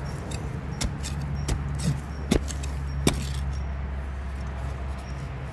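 A digging tool knocking into forest soil several times, sharp short strikes in the first three seconds, over a steady low hum.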